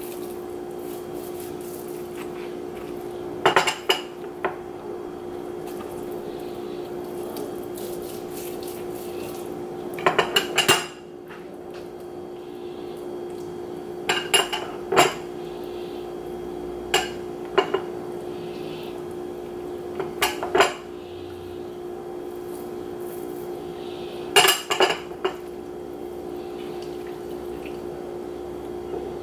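Clatter of kitchen utensils and dishes: sharp clinks and knocks in short clusters every few seconds, over a steady hum.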